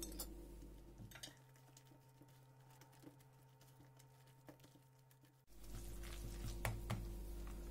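Faint clicks and scrapes of a plastic spatula against a plate and a plastic bowl while herbs are scraped in and the batter is stirred, over a low hum. The sound drops almost to silence for about four seconds in the middle.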